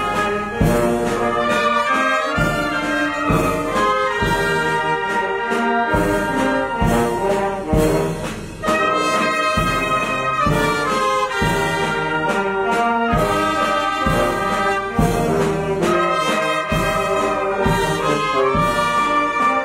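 Brass band music with a steady beat: held brass notes carrying a melody over a regular low pulse.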